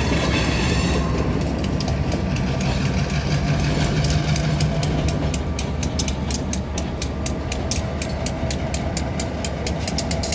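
A freight train's EMD diesel locomotives, a GP15-1 and an SD40-2, rolling past at low speed with a steady diesel engine drone. From a few seconds in, a rapid ticking grows denser as the locomotives come level.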